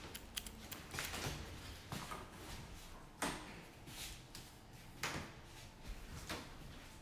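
Footsteps on a hard tile floor, about one step a second, the loudest a little over three seconds in.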